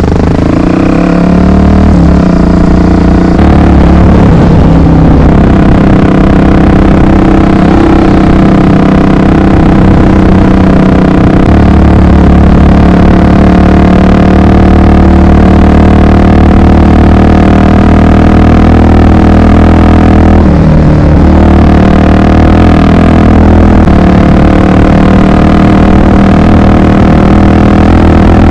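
Honda XR 250 Tornado's single-cylinder four-stroke engine running steadily while riding, its pitch briefly dropping and climbing again a little after two-thirds of the way through.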